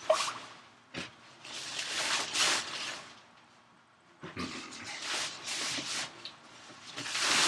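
Nylon tent rain fly rustling and swishing as it is handled and pulled over the tent, in several separate swishes, with a sharp click just after the start and another about a second in.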